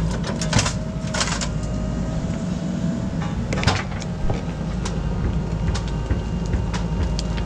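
JCB 3DX backhoe loader's diesel engine running steadily under load while the bucket digs into a soil pile, with a few sharp clanks and scrapes from the bucket and its linkage, the loudest about half a second in, a second in and midway.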